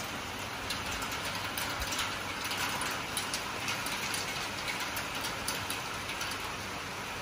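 Steady heavy rain falling, with many small sharp ticks of drops striking close by.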